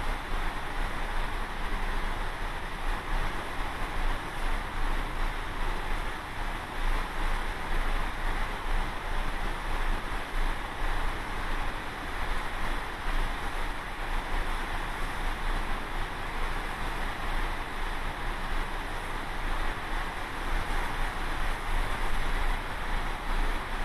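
Steady rush of wind and open-ocean water along a moving ship, with a low rumble underneath and wind buffeting the microphone.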